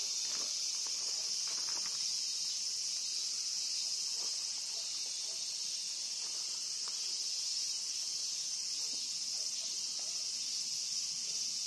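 Chorus of summer insects: a steady, high-pitched shrill that holds without a break.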